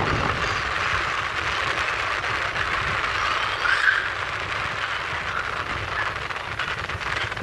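Sea water rushing and splashing along a moving ferry's hull, a steady hiss, with wind buffeting the microphone underneath.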